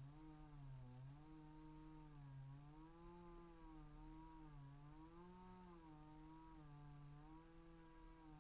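Chainsaw running while cutting wood, its engine note wavering, dipping and rising in pitch as the load on the chain changes.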